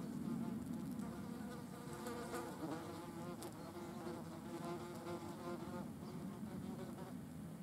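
German wasps buzzing in flight at close range, several wingbeat buzzes overlapping in a steady drone that wavers in pitch as individual wasps move about.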